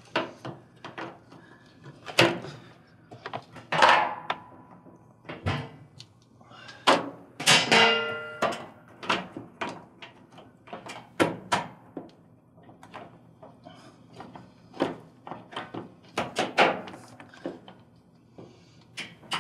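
Irregular plastic clicks and knocks as a wiring harness connector is pushed onto a new Maytag 12001908 washer lid switch and the switch is handled and seated in the washer top.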